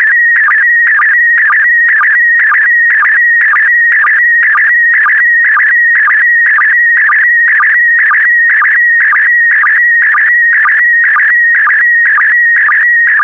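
Slow-scan television (SSTV) signal in PD120 mode, sending a colour image line by line. It is a steady, fast-warbling tone, broken by a brief drop in pitch about twice a second; these drops are the line sync pulses.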